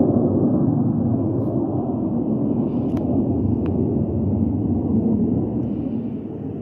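Steady low rumble of distant jet aircraft overhead, easing slightly near the end, with two faint clicks about halfway through.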